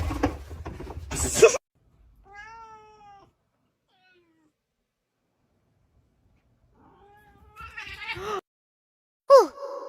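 A domestic cat meowing: a short meow about two seconds in and a longer meow around eight seconds. Before them is a noisy stretch with a loud burst at about a second and a half. Near the end a sharp sound drops in pitch into a ringing tone.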